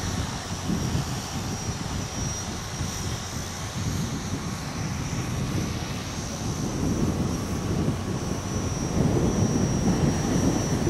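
Electric motors and propellers of a radio-controlled tricopter in flight, a high steady whine. Wind buffets the microphone in gusts, heavier in the second half.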